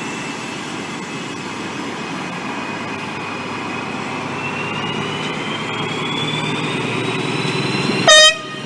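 A train running past with a steady rumble, and a whine that rises in pitch about halfway through. Near the end there is a short, loud, high tone.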